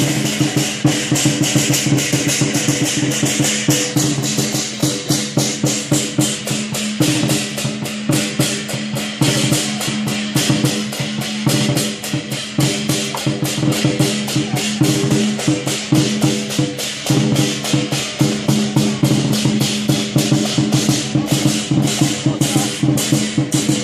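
Lion dance percussion: drum and cymbals struck in a fast, even beat of about four strokes a second, with a steady metallic ringing underneath.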